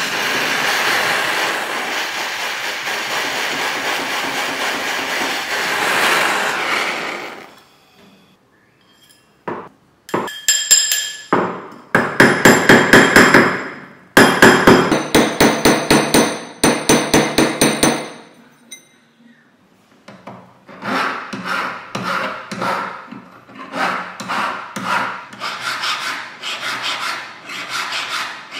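A jeweller's torch hisses steadily during silver soldering and cuts off about seven seconds in. A few seconds later a hammer strikes the silver ring on a steel ring mandrel in quick runs of about four blows a second. In the last third a flat hand file rasps back and forth across the ring, roughly one and a half strokes a second.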